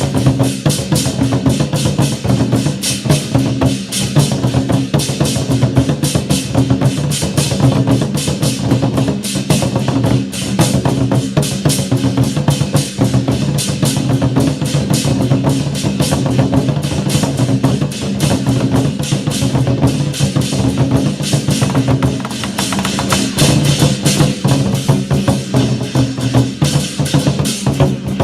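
Chinese war drums (zhan gu) beaten in a fast, dense, continuous rhythm by a drum troupe.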